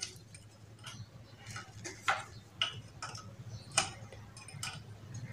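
Open-end spanner clicking and tapping against the steel 11 mm nuts on a monoblock water pump's casing as it is fitted and worked to loosen them: a handful of sharp metallic ticks at irregular intervals, the clearest about two and four seconds in.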